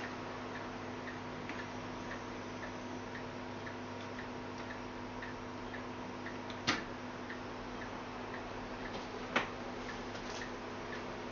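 Telefunken W215 HiFi turntable running with a steady low hum and a light, regular tick about twice a second, with no music playing; two sharper clicks come about two-thirds of the way in and again near the end.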